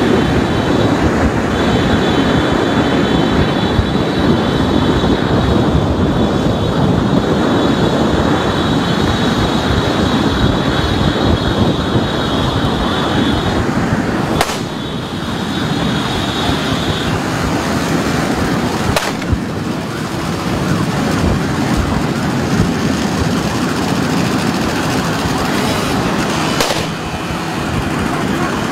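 Loud, steady rush of wind and road noise from a fast-moving vehicle. A thin, steady high whine runs through roughly the first half, and a few sharp knocks come later on.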